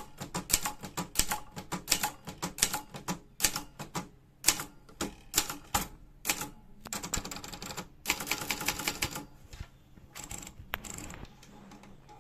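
Brother Deluxe 250TR typewriter being typed on: fast key strikes clacking several a second for about six seconds, then two longer continuous rattles of the mechanism, and the typing tails off near the end.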